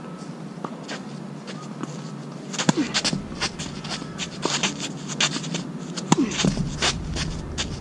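Tennis rally: a quick run of shoe scuffs and squeaks on the court as the player shuffles into position, then a sharp crack of the racket striking the ball on a backhand just after six seconds in.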